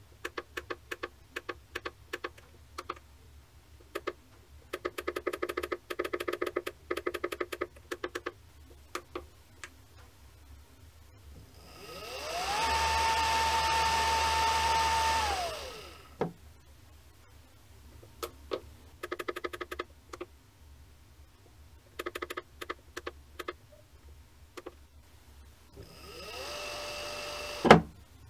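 Brushless servo motor from an industrial sewing-machine kit, set to 4500 rpm: it spins up with a rising whine, holds a steady high whine for about three seconds, then winds down. Before that comes a run of light clicks from its controller keypad. Near the end the motor spins up again to a lower whine and stops with a sharp click, the loudest sound.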